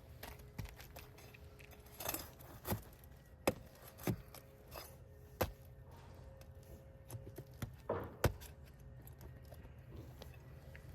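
Irregular sharp clicks, cracks and taps from roof shingles being pried up and unsealed from one another around a wind-damaged shingle.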